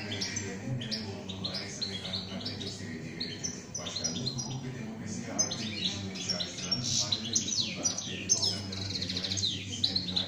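European goldfinch singing: a fast, unbroken run of twittering chirps and gliding notes, with a quick, evenly repeated trill near the end.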